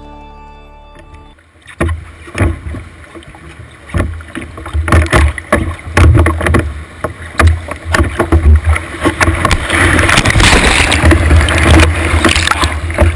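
A music track fades out in the first second or so, then the on-board sound of a wooden dory running whitewater rapids takes over: rushing, splashing water against the hull with irregular knocks and low buffeting on the microphone, building to a steady rush of white water near the end.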